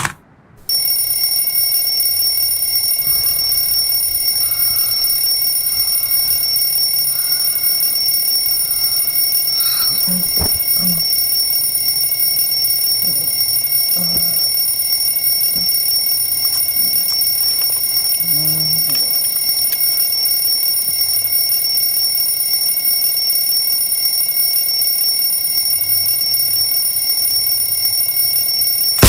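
Alarm clock ringing loud and unbroken, starting just under a second in and cutting off abruptly at the end.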